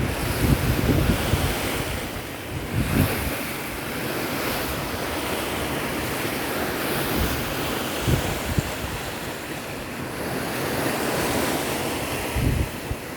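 Wind buffeting the microphone in gusts over a steady wash of open sea water.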